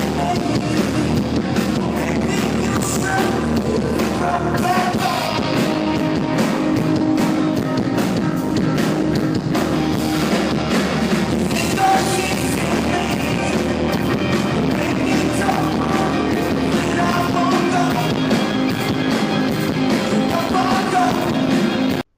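Rock band playing live, a singer over guitars and drums with a steady beat; it cuts off suddenly near the end.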